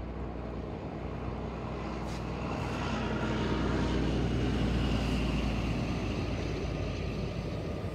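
XPT diesel passenger train passing close by: the leading power car's engine and the wheels on the rails swell as it approaches, loudest about four to five seconds in as the power car goes by, then easing a little as the carriages roll past.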